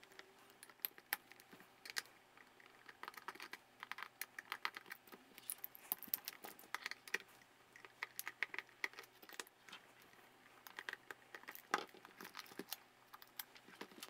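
Scattered light clicks, taps and crinkles from working on the plastic housing of a Tektronix P5205 differential probe: labels peeled back and the corner screws undone with a screwdriver.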